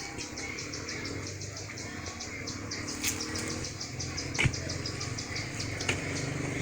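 Insects chirping in a fast, even pulse, with three sharp clicks spread through it.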